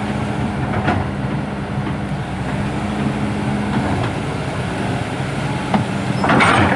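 Heavy diesel engine of earth-moving machinery running steadily under load, with a couple of sharp clicks and a louder harsh, noisy burst near the end.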